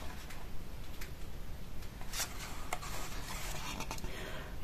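Pages of a glossy photobook being handled and turned: a few soft paper flicks and a light rustle near the end as a page turns over.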